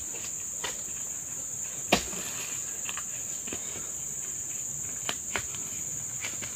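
Steady high insect chirring, with a few scattered thuds and knocks as oil palm fruit bunches are hooked up on a pole and tossed onto a truck's load; the sharpest knock comes about two seconds in.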